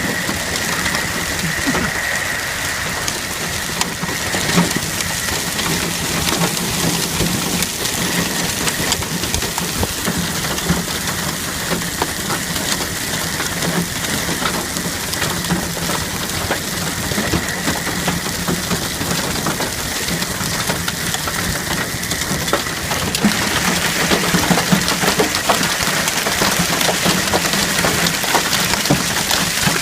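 Heavy thunderstorm rain beating down hard, a dense steady hiss full of pattering drops that grows louder about two-thirds of the way through, with a faint steady hum underneath.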